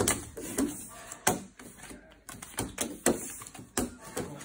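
Playing cards being picked up, passed and set down on a wooden table: a string of irregular light taps and slaps.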